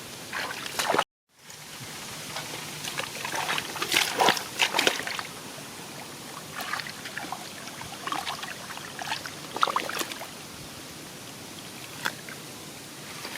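Shallow rice-field water sloshing and trickling, with scattered small splashes. The sound drops out completely for a moment about a second in.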